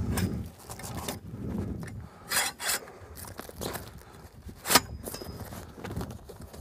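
Camper-trailer awning legs being shortened and handled: rubbing and scraping of the poles and canvas, with several sharp clicks, the loudest a little under five seconds in.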